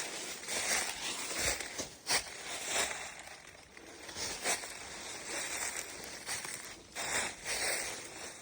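Footsteps of someone walking outdoors, each step a short rustling crunch, coming about one or two times a second.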